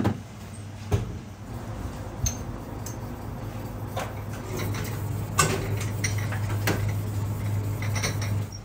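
Dishes and utensils clinking and knocking now and then as they are handled, over a steady low hum.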